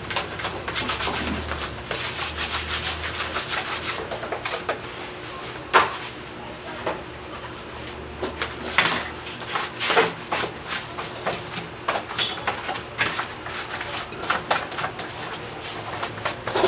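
Dry scraping and rubbing of flour being scooped into a bucket, with many small clicks and a few louder knocks.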